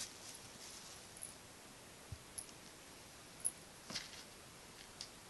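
A kitten wrestling a fleece toy on carpet: faint, scattered clicks and soft scuffs about a second apart, the sharpest one about three and a half seconds in.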